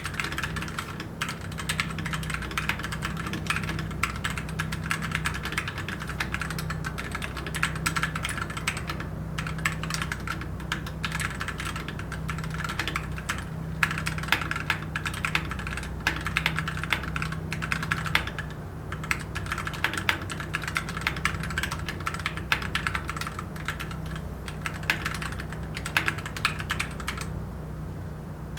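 Typing on a Tecware B68 65% mechanical keyboard with Gateron switches and PBT keycaps: a fast, continuous run of key clacks with a few brief pauses. The foam sandwiched between PCB and plate and the factory-lubed stabilizers are what give it its sound out of the box. A faint steady hum lies beneath.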